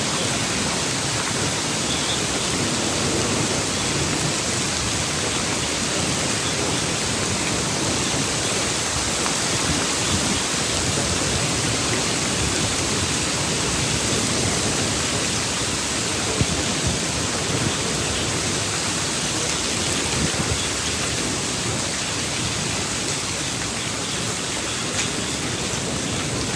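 Heavy rain falling steadily in an even hiss during a thunderstorm, with a few faint ticks of drops.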